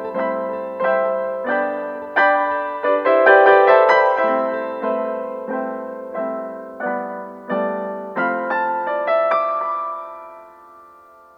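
Solo piano background music: slow chords struck one after another, each ringing and dying away, the piece fading out near the end.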